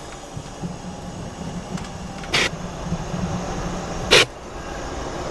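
Low steady rumble from a handmade diesel/Jet A1 jet engine whose air intake has fallen off mid-test, broken twice by short, sharp, loud hissing bursts, about two seconds apart.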